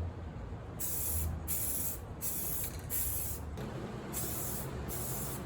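Aerosol can of Rust-Oleum self-etching primer spraying in short hissing bursts, about six of roughly half a second each, spot-priming bare metal on a car fender. A steady low hum runs underneath.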